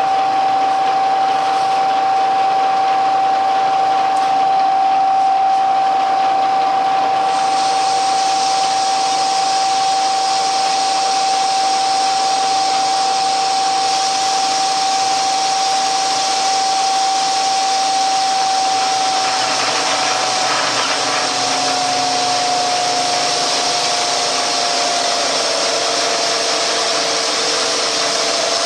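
Milling machine running while milling aluminum: a steady whine with a hiss over it. The hiss brightens about a quarter of the way in, and the whine drops slightly in pitch twice in the second half.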